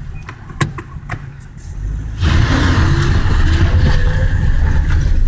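Daewoo Lanos on the move, with engine and road noise. At first it is fairly quiet with a few light clicks, then about two seconds in the running noise swells into a loud, steady rumble. No caliper knock stands out: the front brake calipers, just fitted with an anti-rattle fix, are no longer rattling.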